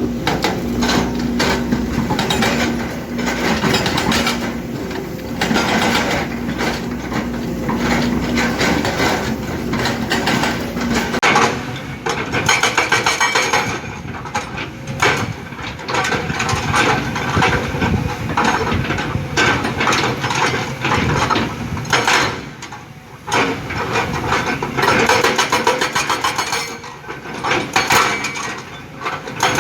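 Kobelco hydraulic excavator working stone: its engine hum runs under repeated hard knocks, then the hum drops away about eleven seconds in and dense, rapid knocking and rock clatter carry on.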